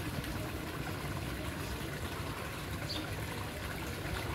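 Steady trickle of water into a koi pond, under a low rumble.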